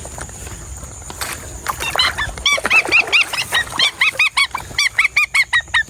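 A bird calling in a fast run of short, arched, high-pitched squawks, about four or five a second, starting about two seconds in after some rustling and knocks.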